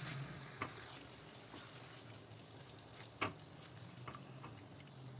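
Whisked yogurt being stirred with a spatula into frying masala in a nonstick pan: a faint sizzle, with a few light knocks of the spatula against the pan, the loudest about three seconds in.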